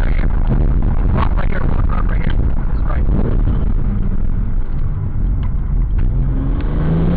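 Car engine and road noise heard from inside the cabin while driving, a steady deep rumble. Near the end the engine note rises as the car accelerates.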